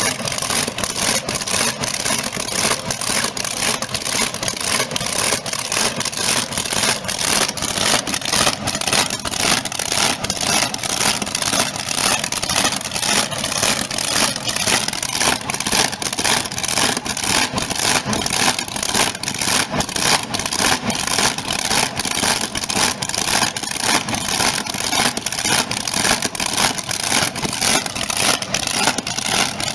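Supercharged V8 boat engine running through open zoomie headers: a loud, choppy run of rapid exhaust pulses that holds steady throughout.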